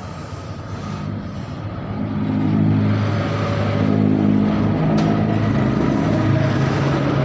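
A motor vehicle engine running steadily, getting louder about two seconds in, with a single sharp click near the middle.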